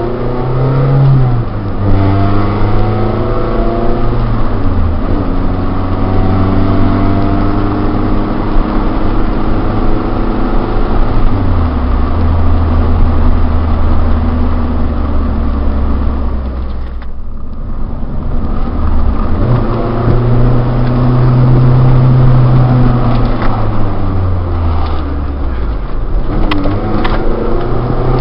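Honda B16A DOHC VTEC inline-four in a Civic Si hatchback, heard from inside the cabin while driving. The engine note climbs and drops several times as the car accelerates and changes gear, with a short dip in level about seventeen seconds in.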